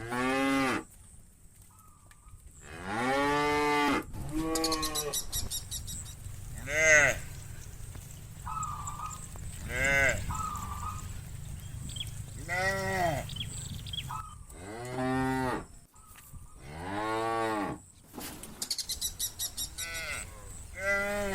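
A herd of cattle mooing, one cow after another, about nine moos in all, each rising and then falling in pitch.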